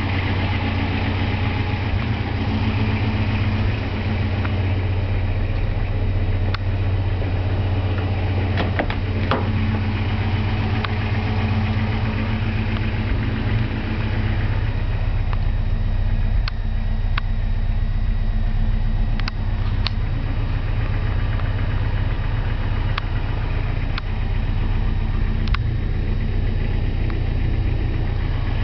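A 1985 Toyota 4Runner's engine idling steadily, with a few light clicks now and then.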